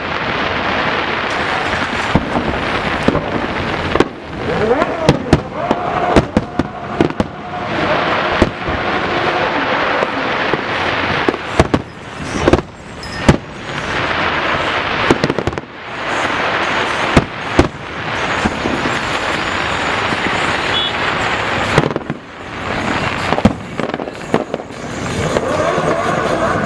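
Fireworks display: a dense run of sharp bangs from bursting shells at irregular spacing over a continuous noisy din.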